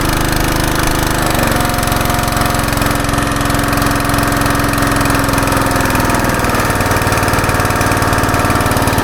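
Westinghouse WPX3200 pressure washer's single-cylinder gas engine running fast, then slowing: its pitch drops about a second in and sinks further near the end as the add-on throttle controller brings the revs down.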